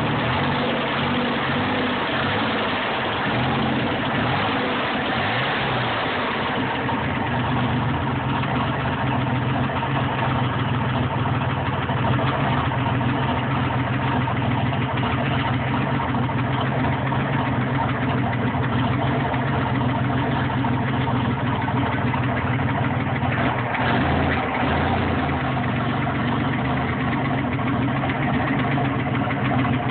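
Engine idling steadily with an abnormal noise that the owner cannot place: rod knock, a stuck valve or an exhaust leak.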